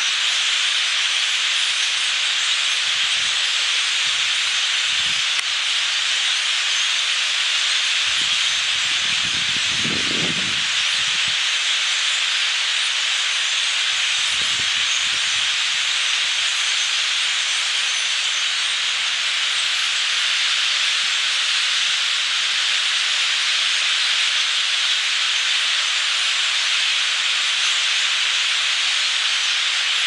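Massed chatter of a huge flock of common grackles, thousands of calls blending into a steady high hiss. A few soft low rumbles come through near the middle.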